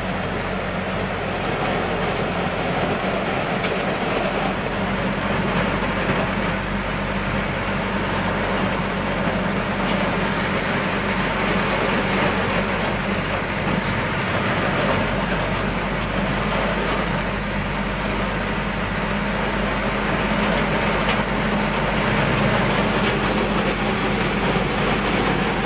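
A vehicle's engine running with a steady low hum under a continuous rush of heavy rain and water, heard from inside the cab while driving through a flooded road.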